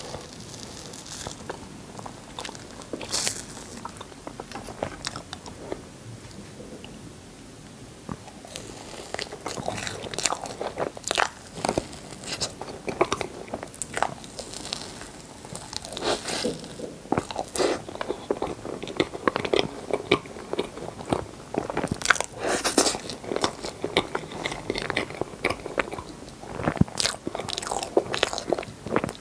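Close-miked eating of rainbow crepe cake: at first a knife cutting down through the soft layers, then from about eight seconds in, dense chewing and wet mouth sounds from mouthfuls of cake and cream.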